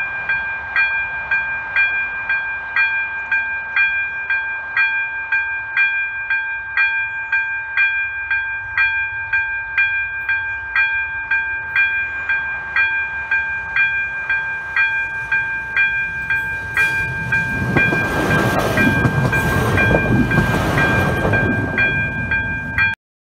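Level-crossing warning bell ringing about once a second. From about 17 s a Regioshark diesel railcar rushes past the crossing for about five seconds, its rumble and rattle drowning the bell, then fades as it leaves.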